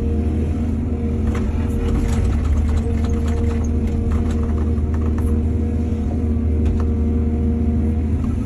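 Heavy diesel engine of an excavator running steadily with a deep drone, with scattered clatter and clicks over the middle of the stretch.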